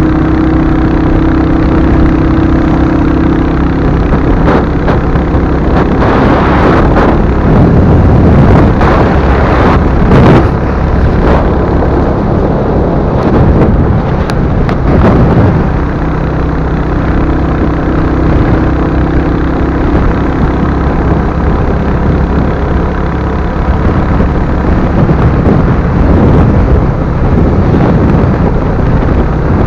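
Royal Enfield Hunter 350's single-cylinder engine running at a steady pace while riding, under continuous wind and road noise, with louder rushes of noise for several seconds in the middle.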